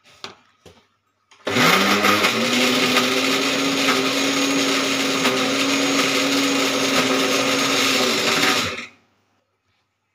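Electric mixer grinder with a stainless steel jar grinding a thick soaked-dal batter. About a second and a half in, the motor starts with a rising whine. It runs steadily for about seven seconds, then winds down and stops.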